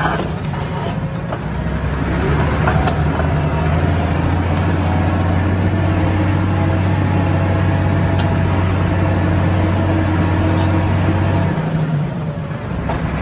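Tractor engine running steadily while towing a disc harrow, with a strong low hum that eases near the end and a few faint clicks.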